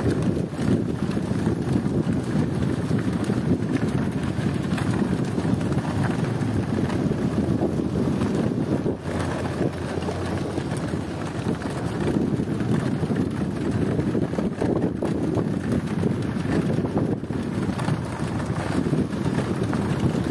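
Wind buffeting the microphone on the move, a steady low rushing rumble that holds throughout as the camera keeps pace with a racing bullock cart on a dirt road.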